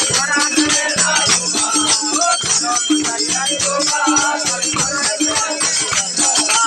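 Live Marwari desi bhajan: voices singing to a harmonium, with a rattling hand percussion keeping the beat.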